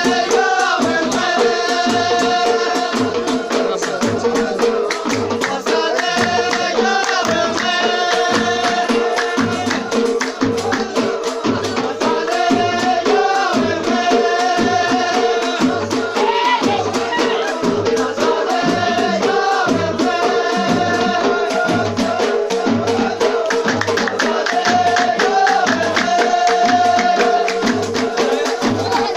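Folk music with a steady drum beat, shaken rattling percussion and a melody over a held drone tone.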